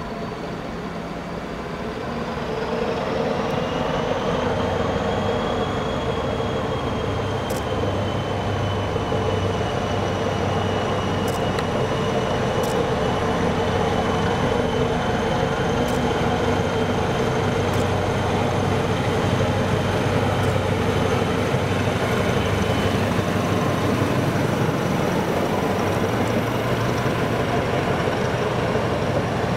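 Passenger train hauled by an SU42 diesel locomotive running past, growing louder over the first few seconds and then steady. A high whine is held over the engine and wheel noise.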